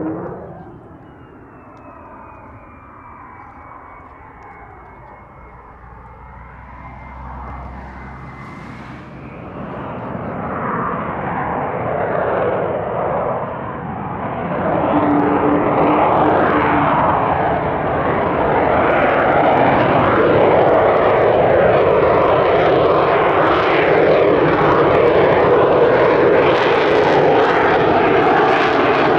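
Lockheed Martin F-35 Lightning II jet engine, a single Pratt & Whitney F135 turbofan, in a flying display. It is faint at first with a thin falling whine, grows louder from about ten seconds in, and runs as a loud rushing roar with sweeping, phasing tones as the jet comes close.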